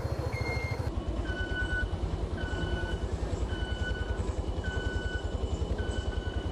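A vehicle engine rumbling with a fast pulse, under a repeating two-tone electronic beep that alternates high and low notes about once a second, like a bus reversing alarm.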